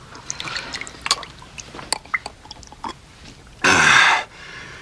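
A man drinking eggnog from a glass mug: small wet sipping and swallowing sounds, then one loud breathy burst about three and a half seconds in that lasts about half a second.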